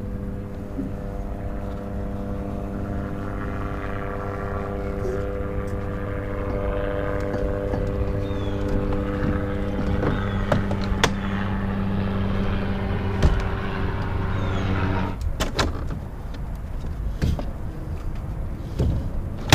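Minn Kota Terrova trolling motor and its bow mount clicking and clunking as the motor is swung up from stowed to deployed and laid back down. Underneath runs a steady low motor hum that stops suddenly about fifteen seconds in.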